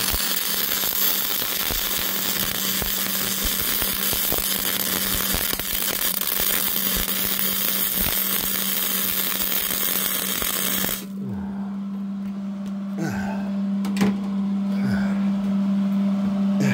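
Aluminium MIG welding with a spool gun under argon: the arc crackles and hisses steadily, then stops suddenly about 11 seconds in. A steady low hum continues throughout, with a few faint clicks after the arc stops.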